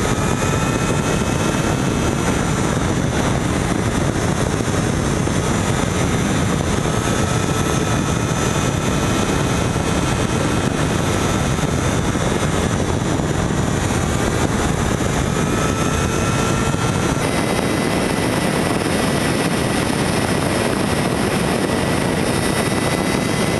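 Steady loud rush of wind on the camera microphone of a moving motorcycle, with faint high steady tones from the running machine.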